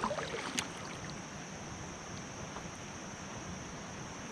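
Steady river water and wind noise around a fishing kayak, with a few light clicks in the first half-second.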